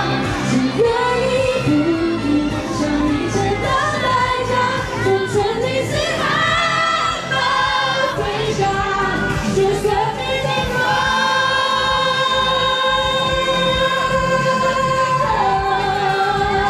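Female pop singer singing live over a full band accompaniment, with a long held note for about five seconds in the second half.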